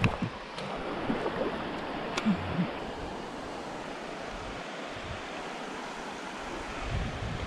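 Fast river current rushing steadily around a kayak, with a few light clicks and knocks in the first couple of seconds.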